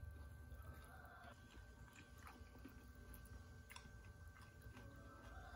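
Near silence with faint eating sounds: soft chewing and a few light clicks as grilled fish is picked apart by hand and eaten.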